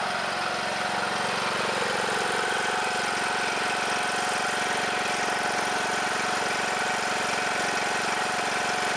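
John Deere LA105 lawn tractor engine running steadily, on a freshly fitted fuel filter.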